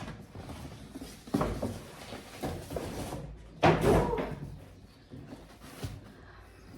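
A few knocks and bumps in a small room, over a hiss for the first three seconds; the loudest knock comes about three and a half seconds in.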